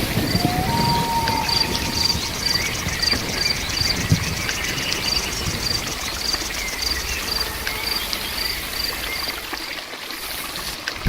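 Steady rain with a cricket chirping regularly, about three chirps a second, and a short bird whistle in the first two seconds.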